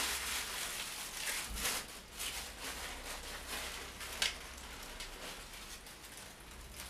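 Rustling and crackling of a blouse and its plastic packaging being handled and unfolded, with a few sharper crackles, the loudest about four seconds in.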